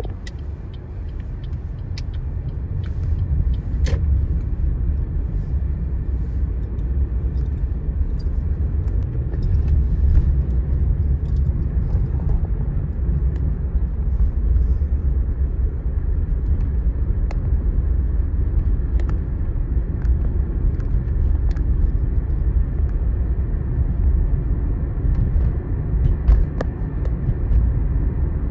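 Steady low rumble of a car on the road, its engine and tyre noise building up over the first few seconds and then holding even, with faint scattered clicks.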